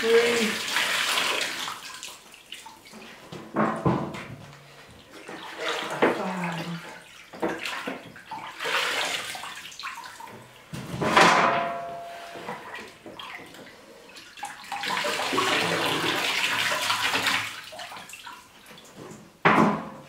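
Water splashing and running: whole chicken carcasses lifted out of a cooler of ice water, and a sink tap running in several short spells as the birds are rinsed, the longest spell about three seconds near the end. A sharp knock shortly before the end.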